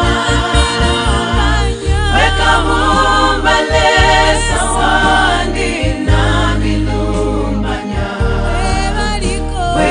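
Gospel praise-team choir singing, several voices together in a worship song.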